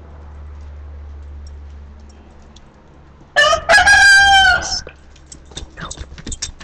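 A rooster crowing once, one loud call of about a second and a half, starting about three and a half seconds in.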